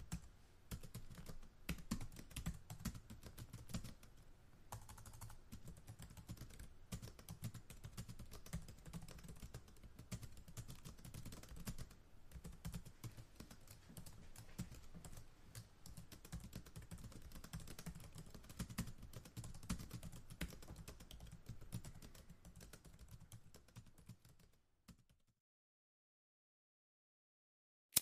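Typing on a laptop keyboard: a steady, dense run of light key clicks that cuts off suddenly near the end.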